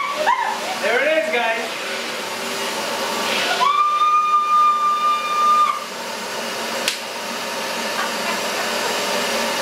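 Shop-Vac wet/dry vacuum running steadily, sucking the air out of a large plastic trash bag through its hose. A steady high whistle sounds for about two seconds near the middle. A woman squeals near the start.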